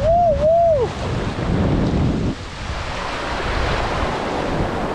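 Surf washing and foaming over a rocky reef ledge, with wind buffeting the microphone. A man's drawn-out shout in the first second is the loudest thing.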